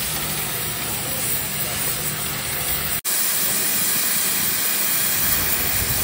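Steady hissing of steel being welded and cut. It breaks off briefly at an edit about three seconds in, after which a gas cutting torch hisses as it cuts through a steel plate.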